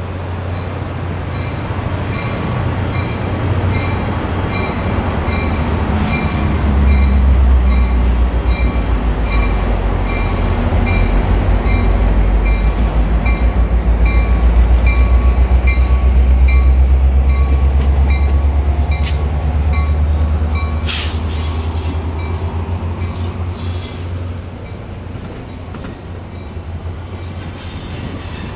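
Nickel Plate Road 765 steam excursion train rolling by with a heavy low rumble and wheel squeal, a bell ringing steadily about one and a half strokes a second. The rumble swells about seven seconds in and eases after about twenty seconds, when several sharp hisses come through.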